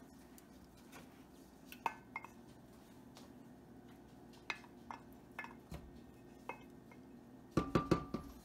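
Scattered light clinks and taps of a wooden spatula scraping heavy cream out of a glass measuring cup over a soup pot, then a quick run of louder knocks against the pot near the end.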